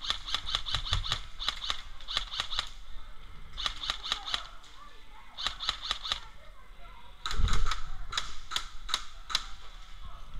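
Airsoft guns firing in short bursts of sharp, rapid clicking shots, about eight a second at first, then in several shorter strings. A dull low thump comes about seven seconds in, followed by a slower string of shots.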